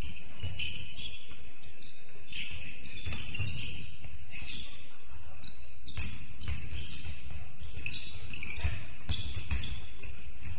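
Basketball bouncing on the court during play: irregular low thumps mixed with short high squeaks and indistinct voices.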